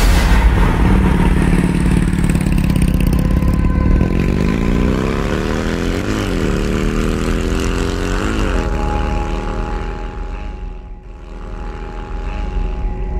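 A vehicle engine running and revving: its pitch climbs and peaks sharply twice in the middle, then drops back and settles.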